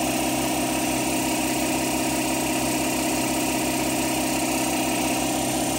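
Husky Pro 230-volt, 3.2 hp electric air compressor running steadily under load, pumping air into its tank, with a fast regular low pulse.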